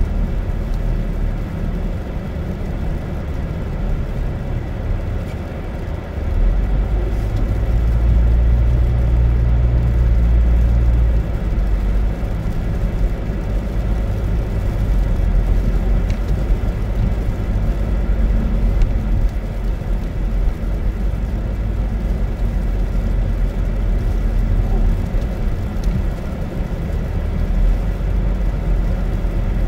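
Car cabin noise while driving on a snow-covered street: a steady low rumble of engine and tyres, growing louder for a few seconds about six seconds in.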